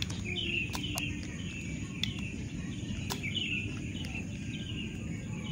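Faint high chirping in the background over low steady noise, with a few sharp clicks about one, two and three seconds in.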